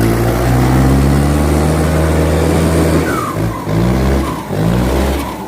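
Vehicle engine sound: a loud, steady low drone for about three seconds, then breaking into short uneven pulses.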